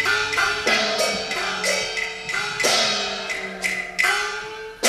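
Cantonese opera percussion: a rhythmic run of sharp strikes on wood block and ringing metal percussion, about two to three strikes a second, each strike ringing on over a few held instrumental notes.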